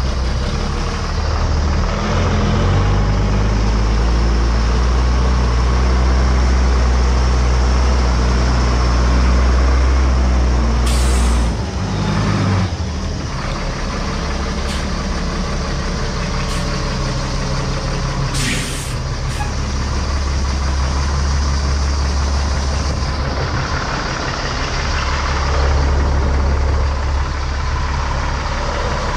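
Sterling Acterra service truck's diesel engine idling steadily, with two short hisses of released air, one near the middle and another several seconds later.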